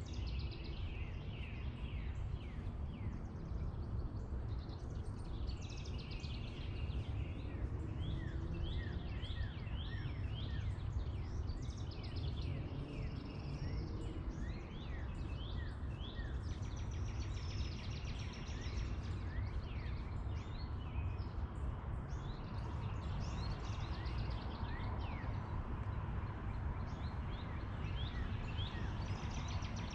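Small songbirds chirping repeatedly, in quick short notes, over a steady low outdoor rumble.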